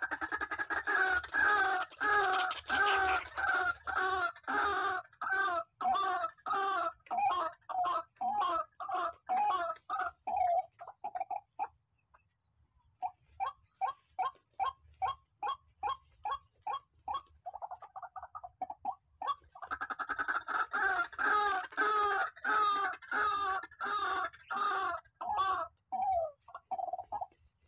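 A rail calling: a long, rhythmic series of harsh, repeated notes at about three a second. It comes in two bouts with a short break about twelve seconds in.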